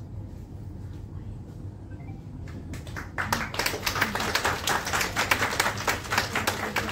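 Audience applauding, starting about three seconds in over a low room murmur.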